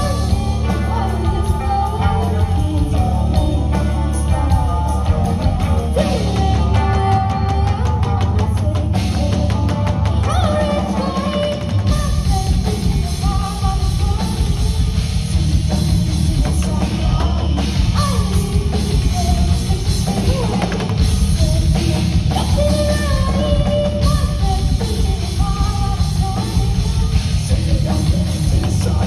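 Rock band playing a song live through the PA, a singer over drums, guitar and bass; the bass gets heavier about twelve seconds in.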